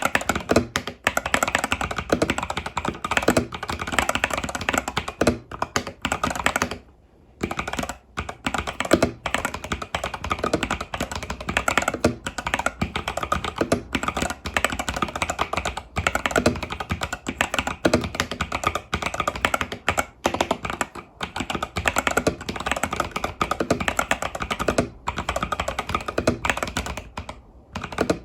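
Fast, continuous typing on an Epomaker TH80 Pro mechanical keyboard with Epomaker Budgerigar tactile switches and stock keycaps: a dense stream of key clacks, with brief pauses about seven seconds in and again near the end.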